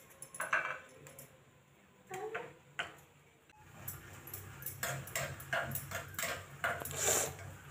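Cashews frying in hot ghee in a small metal tadka pan, with a metal spoon clinking and scraping against the pan as they are stirred. There are scattered light ticks at first, then a denser crackling sizzle with spoon clinks from about halfway.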